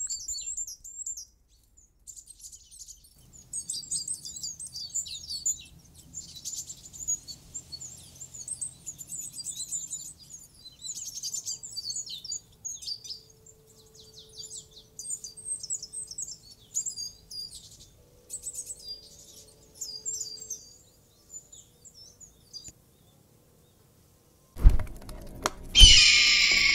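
Small birds chirping and twittering in quick high calls for about twenty seconds, then a short pause. Near the end come several heavy thuds and then a loud, slightly falling screech of a bird of prey.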